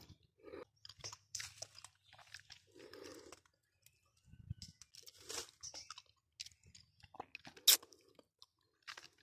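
Faint, scattered crackling and rustling of leaves and twigs as duhat (Java plum) branches are handled, with one sharper snap about three-quarters of the way through.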